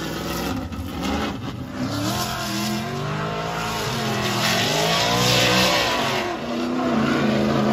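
Ford Mustang RTR drift car sliding under power: the engine revs up and down repeatedly while the rear tyres spin and squeal, and the engine settles into a steadier drone near the end.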